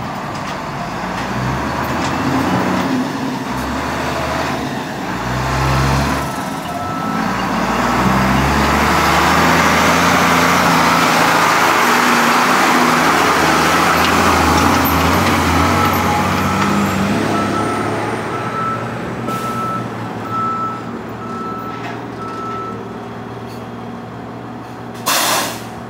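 Heavy diesel truck and loader engines running, growing louder through the middle as they work. A reversing alarm beeps at about one beep a second in the second half, and a short burst of air-brake hiss comes near the end.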